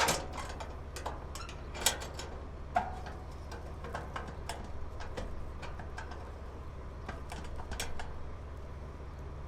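Steady low hum of running farm machinery, with scattered clicks and knocks of a pipe and gear being handled; the sharpest knocks come at the start and about two and three seconds in.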